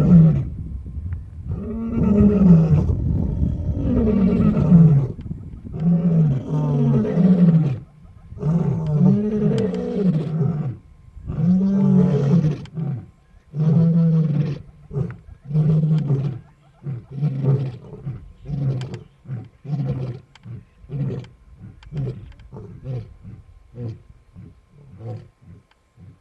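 A male lion roaring. It gives about six long, deep, moaning roars, each rising and falling in pitch, then a run of shorter grunts that come faster and fade away toward the end.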